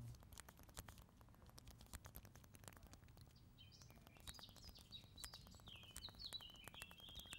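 Faint, rapid, irregular clicking of the BlackBerry KEYone's physical keyboard keys being typed on. From about halfway, faint bird chirps sound in the background.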